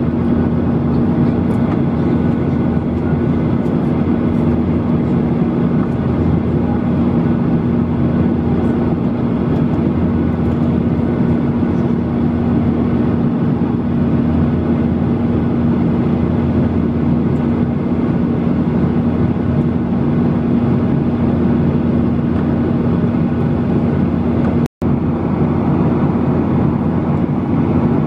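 Steady cabin noise inside a Boeing 737-800 in flight, heard from a seat over the wing: the rush of air and the drone of its CFM56-7B turbofans, with a steady low hum. The sound cuts out for an instant about 25 seconds in.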